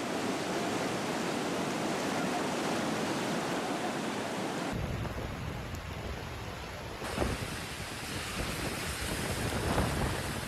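Rushing floodwater: a steady hiss of torrential brown water pouring across a road. The sound changes abruptly twice, giving way to the wash of water and rain in flooded streets.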